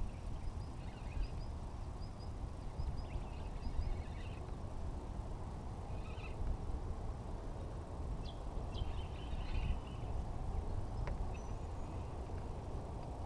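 Steady low rumble of wind and water around a small boat on open water, with faint, short bird chirps now and then.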